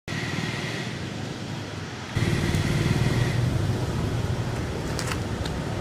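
Fuse of a festival aerial shell burning at the base of its tube before lift-off, a steady hiss with a few sharp crackles about five seconds in. Under it a low rumble that gets louder about two seconds in.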